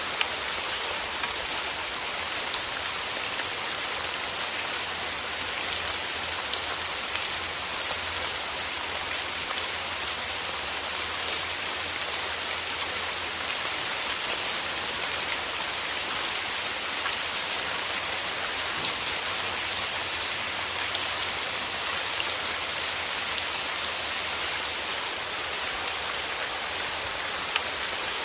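Steady rain falling, an even dense patter with scattered individual drops audible through it.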